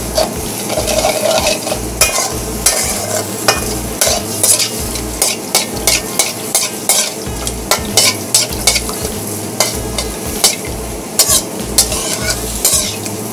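A utensil stirring chili paste (cili boh) with tamarind and a little water as it sizzles in the pan, with frequent irregular scrapes and clicks against the pan over a steady hiss of frying. The paste is being fried until its oil separates.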